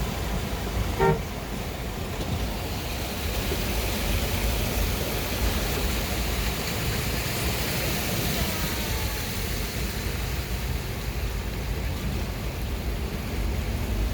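Steady road and engine noise of a car in traffic, heard from inside the car, with one short car-horn toot about a second in.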